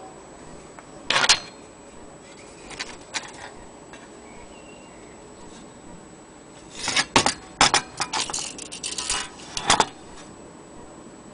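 Metal parts being handled, clicking and clattering: one sharp clatter about a second in, a couple of light clicks soon after, then a busy run of rattling clicks for about three seconds near the end.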